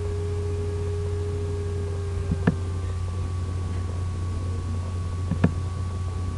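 Steady low electrical hum, with two computer mouse clicks about three seconds apart, each a quick pair of ticks.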